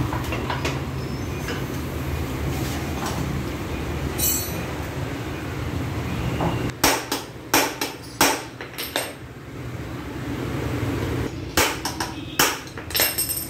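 Sharp hammer blows in two runs, a few strikes a second, about halfway through and again near the end, over a steady low rumble, typical of tire-changing work on a scooter wheel.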